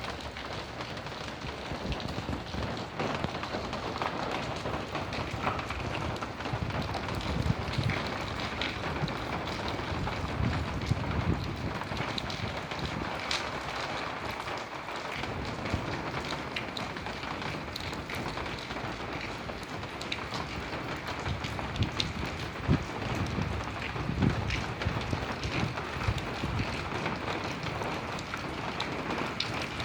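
Steady rain falling, with scattered sharper drop ticks and occasional low rumbling swells.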